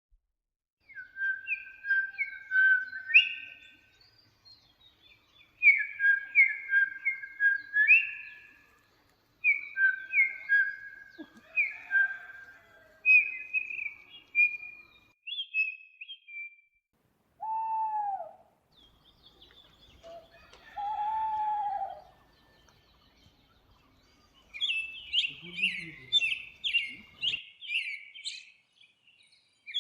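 Birdsong: short phrases of quick, sweet chirping notes, each about three seconds long, repeated four times with pauses. Around the middle come two lower, drawn-out calls, and near the end a faster run of higher chirps.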